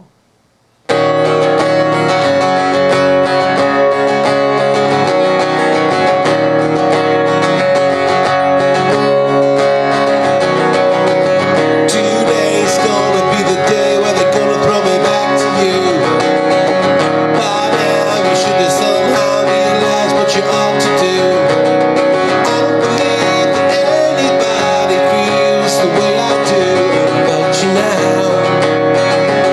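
Acoustic guitar strummed, starting about a second in, with a man singing along into a microphone; the voice comes in about twelve seconds in.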